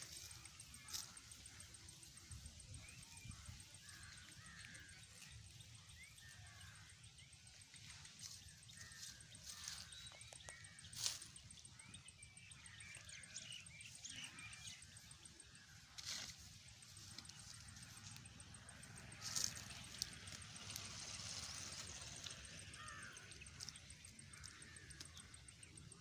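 Faint rural outdoor ambience: scattered bird chirps over a steady high insect trill, with a few sharp clicks now and then.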